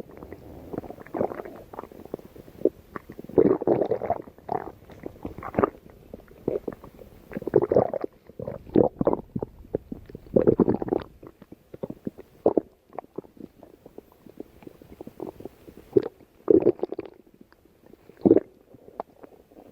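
Stomach growling: irregular gurgles and squelching rumbles that come in clusters, with short quieter gaps between them.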